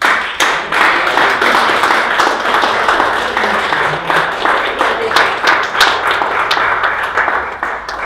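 Audience applauding loudly: many hands clapping, starting suddenly and dying down near the end.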